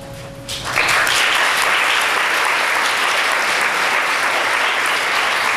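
A held musical note dies away about half a second in, and a theatre audience breaks into loud, steady applause.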